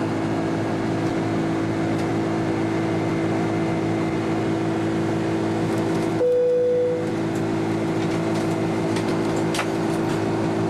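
Steady jet engine and airflow noise inside the cabin of a Thai Airways Airbus A300-600 airliner, a constant hiss with a low hum. About six seconds in, the hiss thins and a single brief steady tone sounds for under a second.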